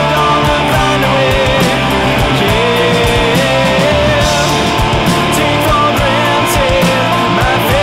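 Loud rock music with an electric guitar lead line and a steady beat.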